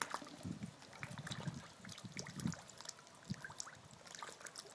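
Feeding catfish splashing at the surface of a pond: many scattered small splashes and drips, with a few soft low thumps.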